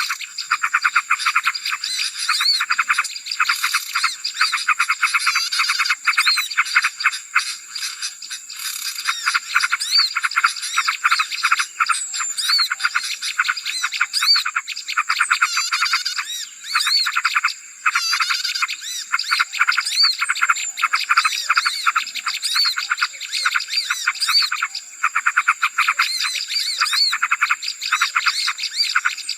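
Bird-lure recording of many small songbirds calling at once: a dense, rapid chatter of chirps and ticks with short rising-and-falling whistled notes, over a steady high-pitched ringing tone.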